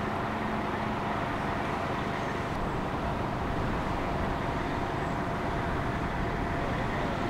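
Steady, loud outdoor vehicle and engine noise with no clear pattern, cutting off suddenly near the end.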